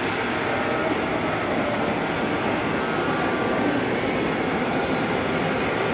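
Textile mill machinery running with a steady, even mechanical din.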